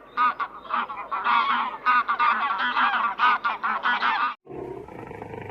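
A flock of waterfowl honking: many short calls overlapping in quick succession, cut off abruptly a little past four seconds. A lower, rougher animal sound then begins.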